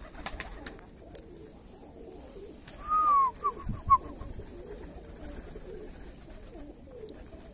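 A flock of domestic fighting pigeons cooing low and continuously while feeding. About three seconds in, a higher arched bird call and a few short chirps stand out as the loudest sounds.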